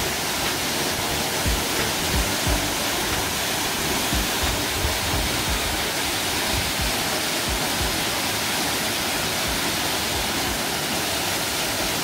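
Steady, full rush of a tall mountain waterfall, the Heebang Falls, plunging about 28 m into its rock pool, with irregular low thuds beneath it.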